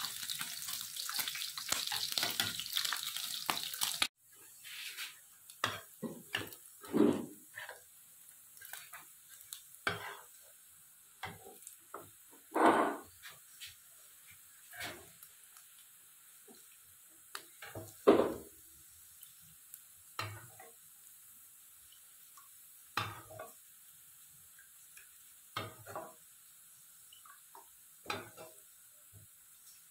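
Water running from a tap for about four seconds, then stopping abruptly. Scattered clinks and knocks of pots, dishes and utensils being handled follow, a few of them louder.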